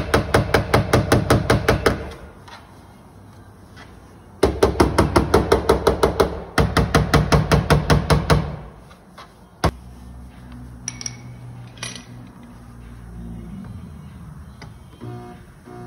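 Body hammer tapping rapidly on a bare steel car quarter panel, about six or seven quick strikes a second, in three runs of about two seconds each, as the dented sheet metal is worked straight. After that come a few single clicks.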